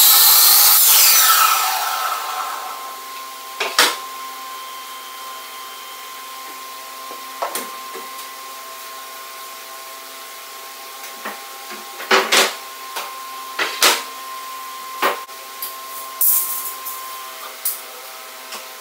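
A power miter saw finishing a cut in wood, its blade winding down over the first couple of seconds. A steady machine hum follows, broken by several sharp wooden knocks and clatters as boards are handled and set down.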